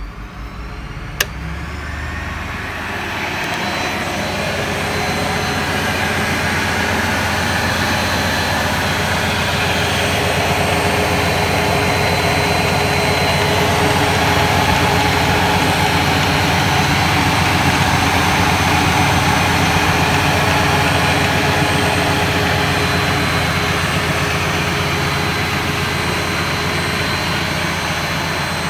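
A switch clicks about a second in. Then a DC treadmill motor on a Boxford lathe spins up and runs steadily, driving the lathe's belts and pulleys. The motor is fed from a DC rectifier through an electric heater wired in series with it, which limits the current.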